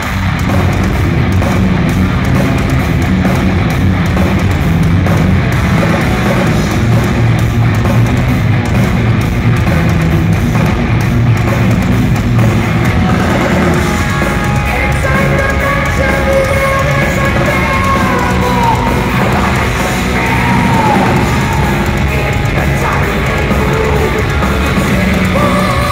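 A heavy metal band playing loud and live: distorted electric guitars and drums, with a wavering sung voice over them, mostly in the second half. Recorded from the audience in a large hall.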